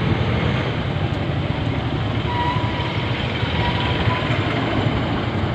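Steady low rumbling background noise, with a faint thin tone briefly about halfway through.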